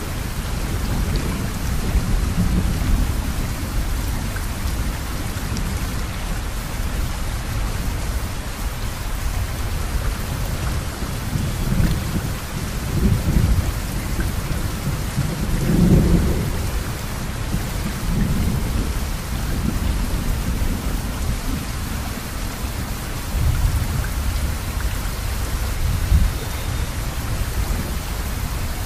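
Steady rain hiss with low thunder rumbles swelling and fading several times, the loudest about halfway through.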